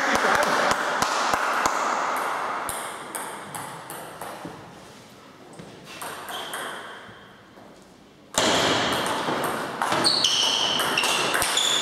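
Table tennis ball hitting paddles and the table: scattered light ball clicks, then a rally of quick hits with high ringing pings near the end, over a steady background hiss.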